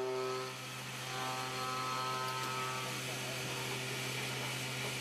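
CNC milling machine cutting a brass workpiece with an end mill: a steady machine hum with several held tones over an even cutting hiss.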